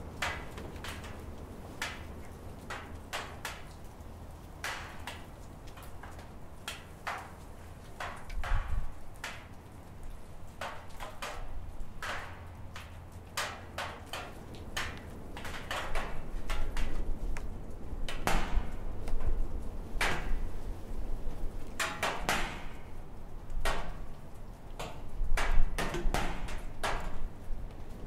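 Gusty wind around an old wooden barn, rumbling on the microphone, with irregular sharp knocks and clicks throughout. The wind grows stronger about halfway through.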